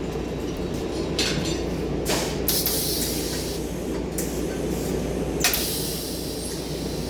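Arc welding on a steel pipe joint: intermittent crackling hiss from the arc in several stretches, over a steady low hum.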